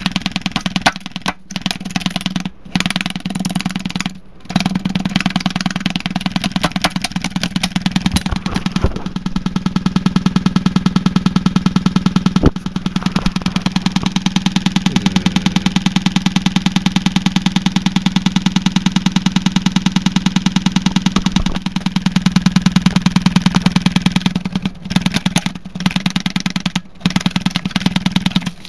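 Damaged Rockford Fosgate Crescendo midrange speaker, its cone and dust cap cut and stabbed, driven hard by a clipping amplifier. It gives a loud, distorted, buzzing low tone with a rapid rattle. It cuts out briefly a few times in the first seconds and again near the end.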